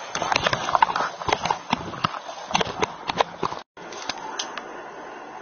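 Body-worn camera rubbing and knocking against the officer's uniform and gear, a run of irregular sharp clicks and knocks. They break off about three and a half seconds in, leaving a quieter stretch with a few faint clicks.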